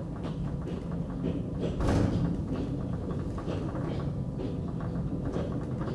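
Dresden Schwebebahn suspension railway car running along its overhead rail: a steady mechanical rumble with a low hum, broken by repeated clacks and a louder clatter about two seconds in.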